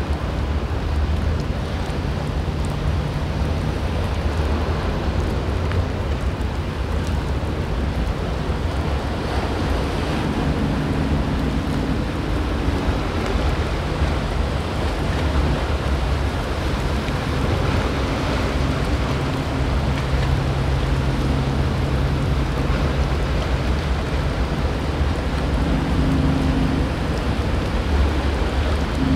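Sportfishing boat's inboard engines droning as it runs in through rough inlet water. The drone comes and goes over a steady rush of breaking surf.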